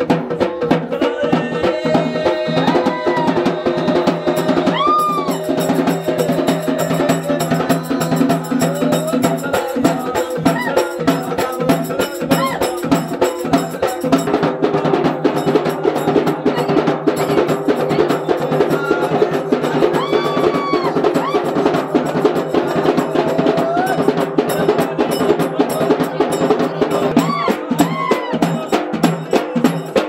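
Fast, steady drumming on a two-headed barrel drum beaten with a stick, with a steady held tone underneath. A few short, high, arching calls sound over it.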